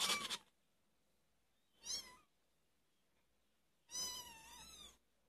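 Month-old kittens mewing: three high-pitched mews, a short one at the start, another about two seconds in, and a longer, wavering one about four seconds in.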